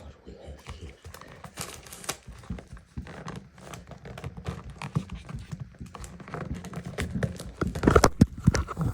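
Handling noises from a wristwatch and its presentation box: a string of irregular small clicks and knocks with some rustling of packaging, busiest and loudest near the end.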